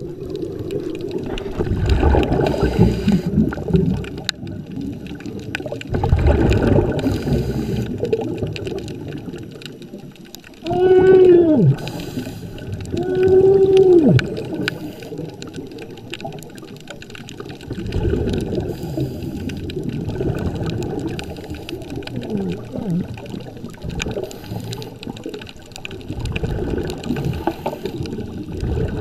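Muffled underwater water noise and bubbling picked up by a camera, swelling every few seconds. About eleven and thirteen seconds in come two short pitched tones that rise and then fall.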